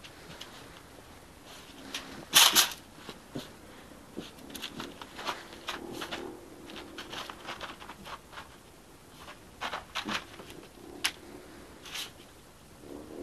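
American Staffordshire terrier puppy nosing and pawing about in snow: a string of short, irregular crunches and sniffs, with one louder burst about two and a half seconds in.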